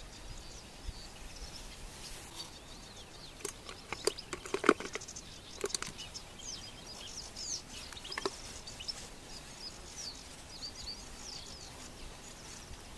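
Small birds chirping and calling over a faint background hiss. A handful of sharp clicks and knocks stand out, several about four to six seconds in and one near eight seconds.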